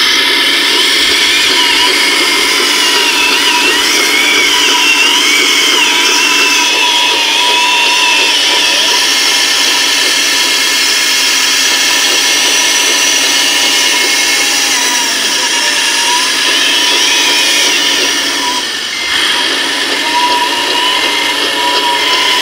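Electric drive motors and gearing of an RC scale crawler loader whining steadily as it works. The whine wavers in pitch with the load and dips briefly about three-quarters of the way through.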